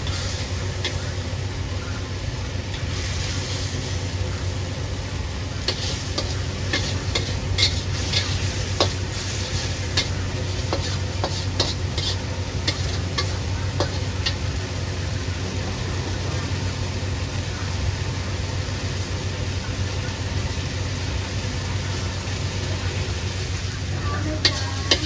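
A metal wok spatula stirring and scraping a curry in a carbon-steel wok, with sharp taps of metal on metal, most of them between about six and fourteen seconds in, over sizzling and a steady low hum.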